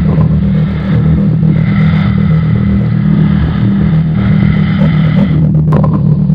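Loud, distorted low drone of a bass-guitar soundtrack, with a steady higher buzz over it that cuts out about five and a half seconds in.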